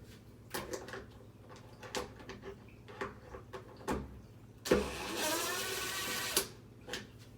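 Scattered clicks and knocks of parts being handled, then a power drill-driver runs for about a second and a half, its whine rising as it spins up, before it stops suddenly.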